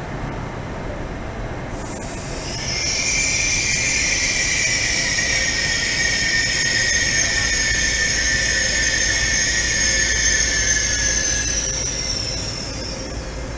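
Passenger train's wheels squealing on the rails as it moves slowly through the station. The high squeal has two notes and starts about two seconds in. It sags slightly in pitch and fades out near the end, over a steady low rumble.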